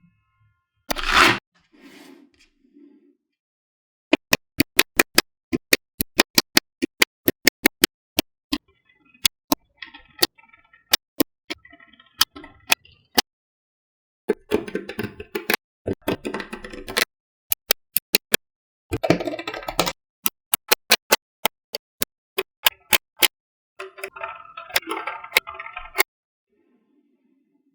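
Small magnetic balls snapping together in quick runs of sharp clicks, with a few short bursts of rattling as a clump of balls is shifted and rolled together.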